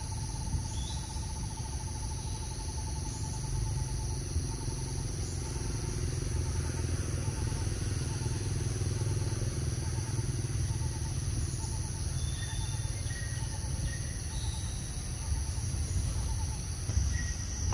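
Outdoor ambience: a steady high insect drone, with a bird repeating a short hooting note about twice a second that fades out about two-thirds of the way through. A few brief chirps sit over a constant low rumble.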